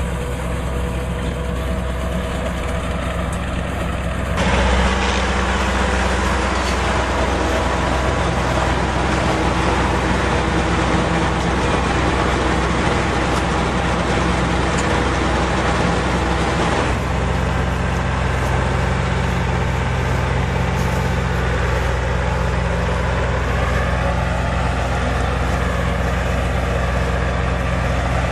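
Tractor engine running steadily while driving a Massey Ferguson 1745 round baler. About four seconds in, a louder, denser mechanical noise sets in suddenly and lasts until about seventeen seconds in.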